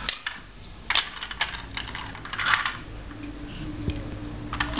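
Hard plastic toy cars and blocks clicking and clattering against each other as they are handled: a few separate sharp clicks, then a short burst of clatter about halfway through.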